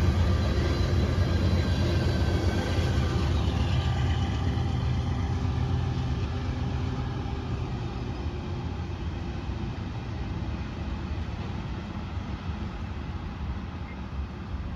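CSX freight train of covered hopper cars running away from the listener, a low steady rumble that slowly fades as it recedes.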